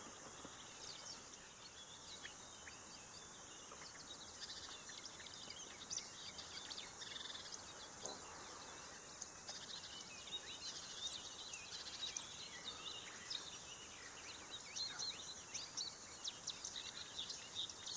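Faint birdsong from several small songbirds: many short high chirps and twitters over a quiet background hiss, growing busier about halfway through.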